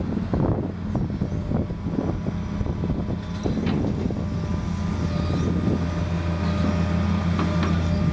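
John Deere excavator's diesel engine running steadily while its bucket and thumb drag a log through the dirt, with scattered scrapes and crackles. A thin whine joins in about five seconds in.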